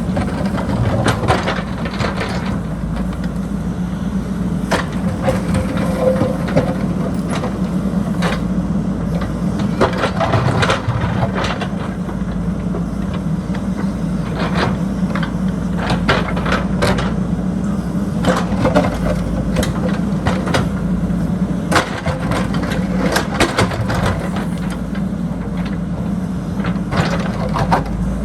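JCB backhoe loader's diesel engine running steadily under working load. Irregular knocks and clanks of the bucket scraping and striking dirt and rocks sound over it.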